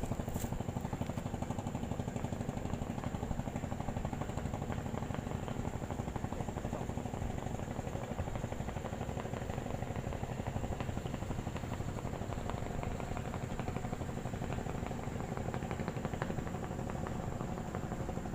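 A small engine running steadily at an even speed, with a rapid, regular firing pulse.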